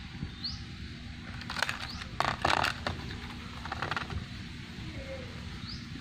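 Rustling and scraping of fishing bait and tackle being handled, in short bursts that are loudest about two and a half seconds in. Faint short rising bird chirps sound now and then.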